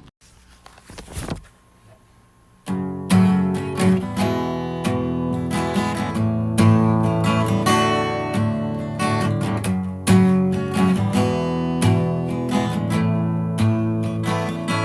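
Acoustic guitar strummed and picked in a steady rhythmic riff, starting about three seconds in after a short burst of noise.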